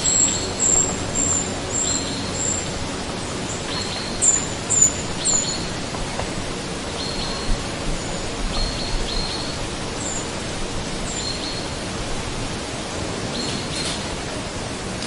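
Short, high bird chirps repeated many times over a loud, steady hiss of outdoor background noise.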